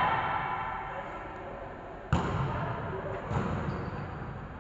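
A volleyball struck hard once about two seconds in, a sharp smack echoing in the gym hall, followed about a second later by a softer thud, over faint background chatter.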